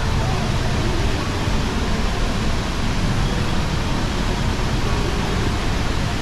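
Tegenungan Waterfall rushing: a loud, steady wash of falling water with no break.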